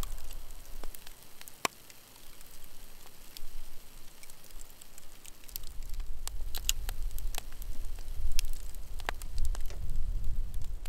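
Campfire embers crackling, with scattered sharp pops and snaps. Under them runs a low rumble that falls away about a second in and comes back about halfway through.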